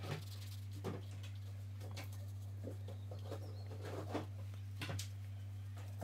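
Faint scratchy dabs of a watercolour brush on paper, several short strokes scattered through, over a steady low hum.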